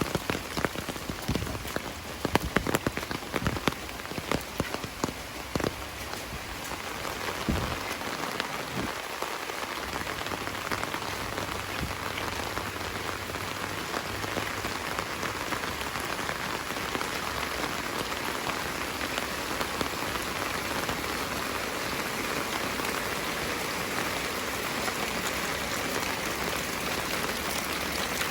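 Heavy rain falling. For the first few seconds loud separate drops strike close by, then it settles into a steady, dense hiss.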